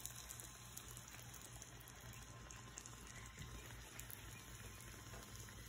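Fry bread dough frying in hot oil in a skillet: a faint, steady sizzle with light crackling.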